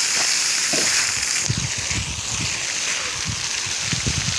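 Steady hiss of splashing fountain water in the background, easing a little about a second and a half in, with scattered soft low thumps.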